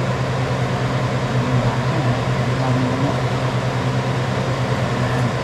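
Steady mechanical hum with a constant hiss over it, unchanging in level, like an appliance motor running.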